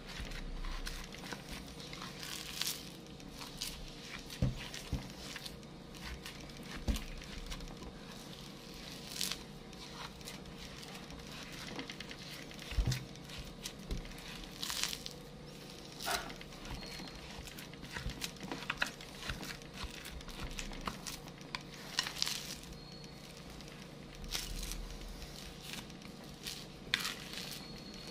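A white plastic spoon stirring and mashing a sticky graham-crumb mixture in a glass bowl, with irregular scrapes, squishes and taps against the glass.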